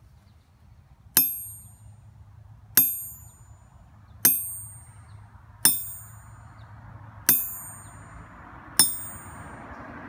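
The face of an early-model Trenton 55 lb anvil pinging sharply as a small steel object is dropped onto it in a rebound test, six single strikes about a second and a half apart, each a bright high ring that dies away quickly. A faint hiss rises in the background over the second half.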